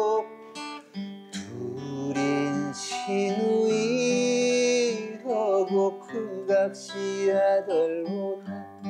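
A man singing in Jeju dialect to his own strummed acoustic guitar, holding one long note near the middle.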